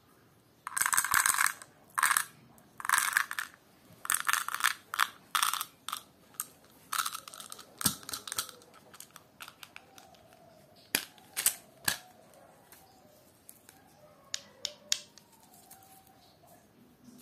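Small candy-coated chocolates pouring and rattling into a small clear plastic box, in several short bursts over the first eight seconds or so. After that come a few sharp plastic clicks and light handling.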